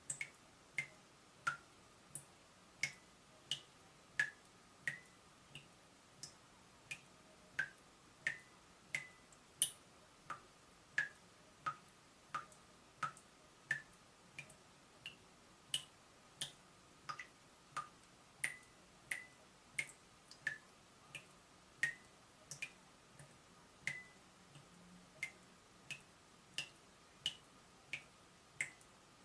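Water dripping from a leaking tap: single drops fall at a fairly even pace, about one and a half a second, each a short, sharp plink, over a faint steady hum.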